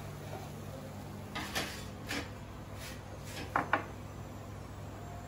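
A ceramic bowl being moved and set down on a hard countertop: a handful of light clinks and knocks, the two loudest close together about three and a half seconds in, over a steady low hum.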